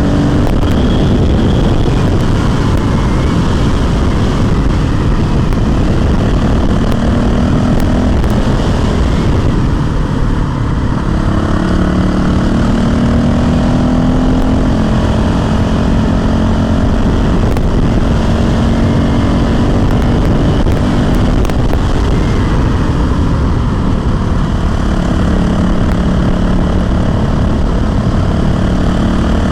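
Honda CRF450L's single-cylinder four-stroke engine running under way, its note rising and falling gently with the throttle. There is a brief dip about ten seconds in.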